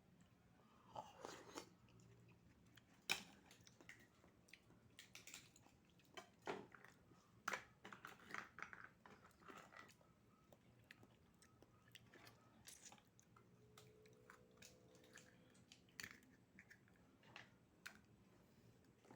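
Faint close-up eating sounds of oysters: chewing and biting, with scattered sharp clicks and crunches.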